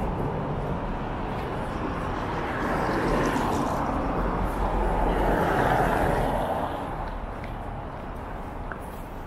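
City street traffic: a vehicle passing, growing louder in the middle and fading toward the end.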